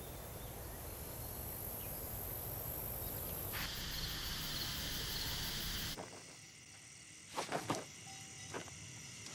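Night-time chorus of crickets and other insects, a steady high-pitched trilling that cuts off suddenly about six seconds in. It is followed by a quieter stretch with a few brief swishes.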